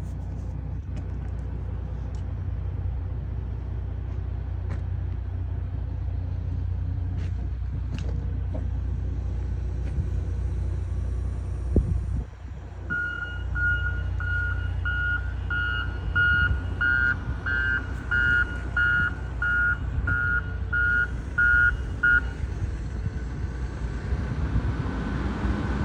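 A John Deere wheel loader's engine running steadily, with its reversing alarm beeping about twice a second for roughly nine seconds in the middle as the machine backs up.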